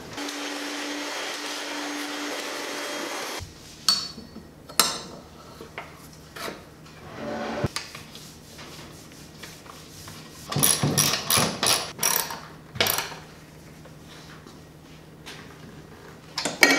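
Hand tools on a lawn mower's belt pulley: scattered metal clinks, taps and scrapes as a wrench is worked on a bolt beside the pulley, with a denser run of clinks a little past the middle. It opens with about three seconds of steady hiss.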